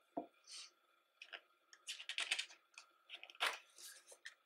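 Pages of a thick hardcover photo book being turned and handled: quiet, irregular paper rustles and crinkly clicks, with a busier flurry about two seconds in and the loudest rustle about three and a half seconds in.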